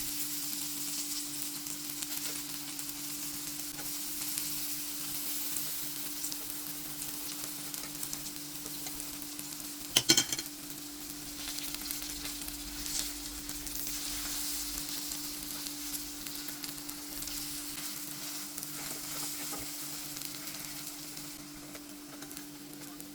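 Food sizzling in hot oil in a frying pan, a steady hiss over a steady low hum, with a brief clatter of sharp knocks about ten seconds in.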